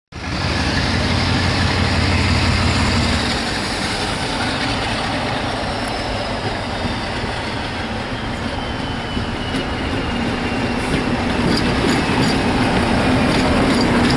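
A Class 47 diesel locomotive running past with its coaches, its engine loudest in the first few seconds. A faint high whine falls slowly in pitch, and wheel clicks come over the rail joints in the second half.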